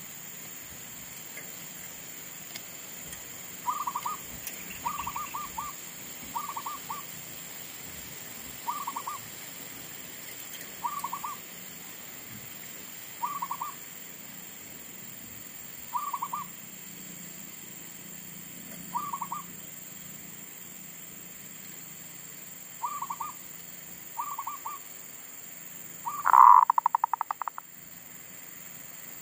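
Zebra dove (perkutut) cooing: short pulsed coos repeated about every two to three seconds, then near the end a louder, longer run of rapid coos. This is the caged decoy dove singing again after it had stopped.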